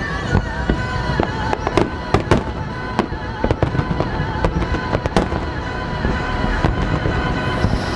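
Aerial firework shells bursting overhead: an irregular string of sharp bangs and crackles.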